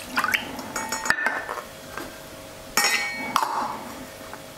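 Small stainless steel bowls clinking against a glass mixing bowl and each other as spices are tipped out of them. There are two bursts of clinks with a brief metallic ring, one near the start and one about three seconds in.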